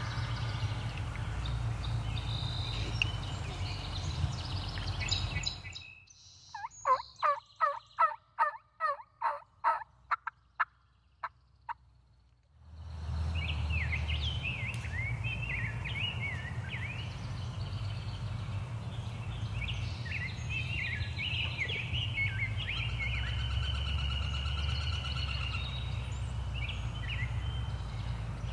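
Wild turkey yelping: a run of about a dozen evenly spaced yelps that fade toward the end, heard in a stretch where the background drops out. Before and after it, songbirds chirp over a low steady rumble.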